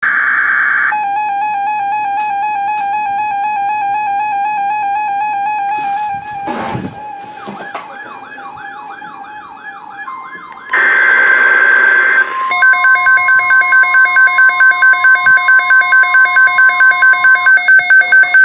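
Electronic emergency alert tones: a steady high tone, a warbling siren-like tone, a short buzzy burst of data noise, then a steady alert tone with rapid beeps pulsing over it, about three a second, for the last six seconds.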